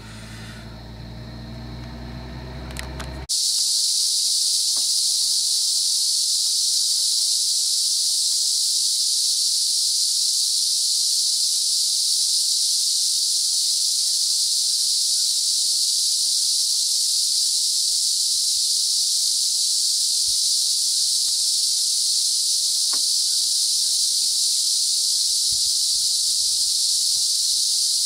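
A loud, steady, high-pitched insect drone fills the roadside forest. For the first three seconds a vehicle engine idles low instead, cut off abruptly where the drone begins.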